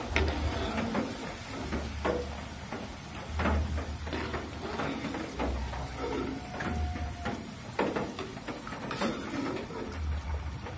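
Steel spatula scraping and clinking against the wok and a metal mesh strainer while fried banana slices are scooped out of hot oil, with irregular clicks, knocks and a few dull bumps over a low sizzle of frying oil.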